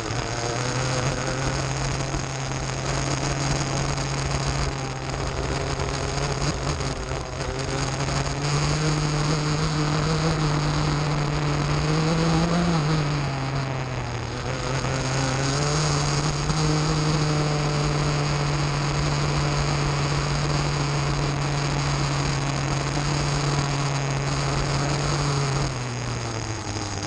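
Rotax Max 125cc two-stroke kart engine running hard, recorded onboard. The engine note climbs on the straights and falls each time the driver lifts for a corner, dipping briefly about halfway through and dropping off near the end.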